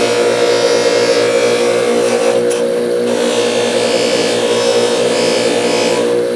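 Bench-mounted polishing wheel motor running with a steady hum, while a 320-grit nylon fiber abrasive wheel scuffs the steel of a pair of pliers. The hiss of the abrasion swells and fades as the work is pressed on and moved.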